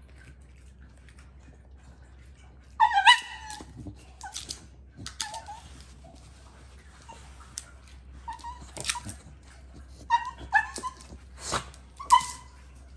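A dog gives short, high-pitched yelps and whines, the loudest about three seconds in and several more near the end, while knocking a plastic treat-dispensing toy about, which gives sharp clacks and rattles in between.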